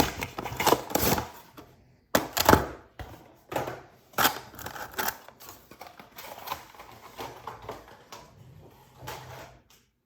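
Packaging of a boxed model airliner being opened and handled: irregular rustles, scrapes and clicks, with a few louder knocks about two seconds in. The handling stops just before the end.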